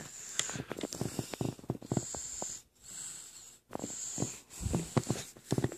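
Pet dog snoring in her sleep: a few rattly, snuffling snoring breaths with short pauses between them.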